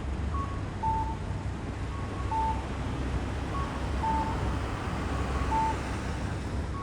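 Steady low vehicle rumble with a repeating two-note electronic beep, a short higher tone followed by a longer lower one, about every one and a half seconds.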